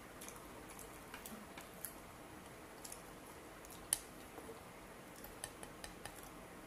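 Scattered light clicks and taps of barbecue skewers and food being handled against plates, with one sharper click about four seconds in.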